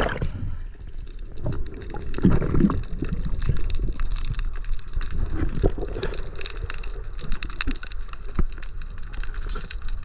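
Muffled water sounds picked up by a camera underwater during a spearfishing dive, with scattered small knocks and clicks.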